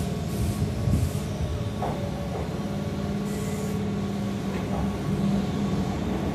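Keihan 2200 series electric train pulling in alongside the platform, its running noise a steady low hum broken by a few short hisses.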